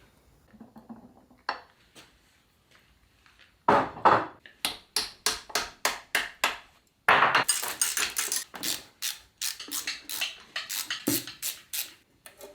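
Repeated sharp metallic knocks and clicks from hand tools working on a Land Rover Series gearbox casing during teardown, about three a second, starting a few seconds in after a quiet stretch.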